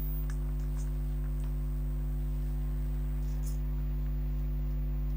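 A steady low electrical hum with a few faint light ticks.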